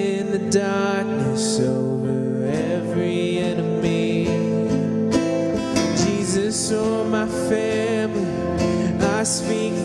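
Praise band performing a contemporary worship song: male and female voices singing over acoustic guitar, electric bass and keyboard.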